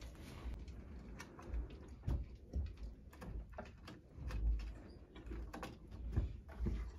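Irregular light clicks and taps over soft low thumps, as of hands handling things at close range.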